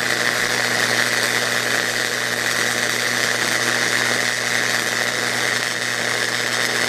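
Flux-cored arc welding: the wire-feed welding arc gives a steady, continuous crackle, with a low electrical hum underneath.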